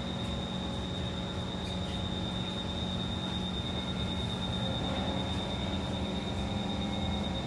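Interior of a Kawasaki C151 metro car standing at a platform: steady hum from the air-conditioning and on-board electrical equipment, with a constant high-pitched whine over it. The low part of the hum drops away near the end.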